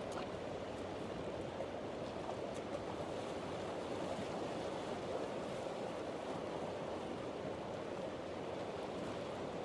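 Steady rush of flowing river water, an even hiss strongest in the lower-middle range.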